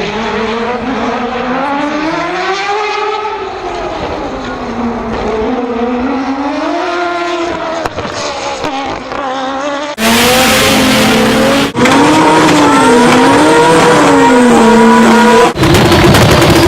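Rotary (Wankel) car engines being revved, the pitch swinging up and down repeatedly. About ten seconds in, the sound cuts abruptly to a louder recording of a rotary engine running at high revs, broken by two brief dropouts.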